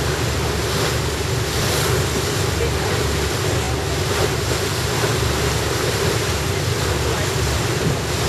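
A boat under way at sea: the steady drone of its engine, with wind on the microphone and water along the hull.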